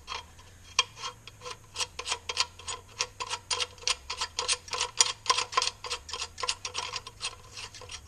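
Ratcheting hand driver clicking, about four ticks a second, as the fasteners holding thin aluminum brackets to a plastic park/turn signal light housing are run in.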